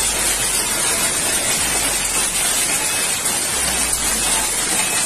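Heavy storm rain pouring down: a loud, dense, steady hiss.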